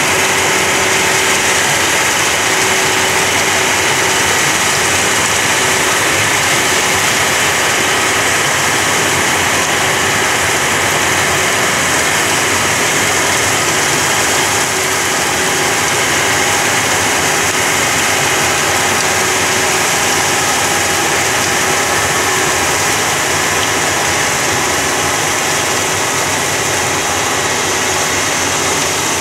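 Rotary snow blower truck's diesel engine running steadily under load, with the rushing hiss of its blower throwing snow out of the chute.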